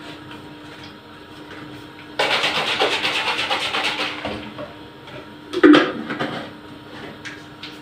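Salted water sloshing and splashing inside a plastic water bottle for about two seconds, starting suddenly. About a second and a half later comes a single sharp plastic knock.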